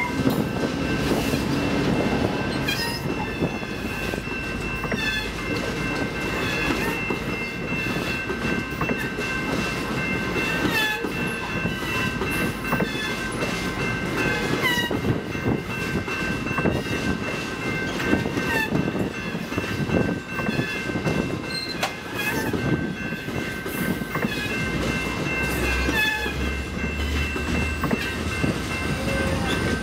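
A commuter train of bi-level passenger coaches rolls past close by: a continuous rumble of steel wheels on rail, with scattered clacks over the rail joints. A level-crossing bell rings steadily over it throughout.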